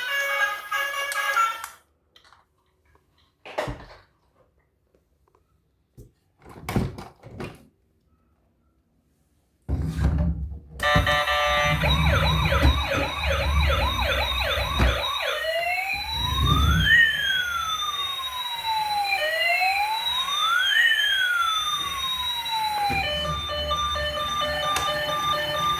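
Electronic siren of a toy emergency vehicle: from about ten seconds in a fast warbling yelp, then two tones sweeping up and down against each other in a wail, giving way near the end to a pulsing electronic jingle. Before it, a moment of music, then near silence broken by a few soft thunks.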